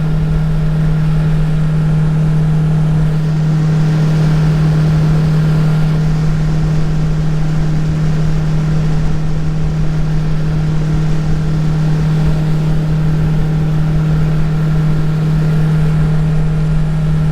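Outboard jet-drive motor on a tunnel-hull jet boat running upriver at a steady speed, a constant loud drone with water and hull rumble beneath it.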